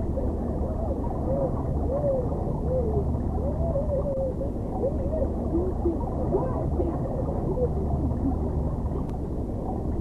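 Sounds of a boy at a computer keyboard, heavily muffled by an underwater sound effect: a steady low rumble with short, wavering pitch glides, like sounds heard through water.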